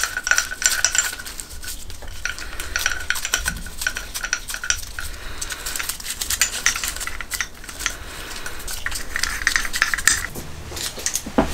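Small steel bolts clicking and rattling against the aluminium cam carriers of a Honda CB750 SOHC cylinder head as they are set in place and threaded in by hand. There are many light, irregular metal clicks, and a steady high tone runs underneath for about the first five seconds.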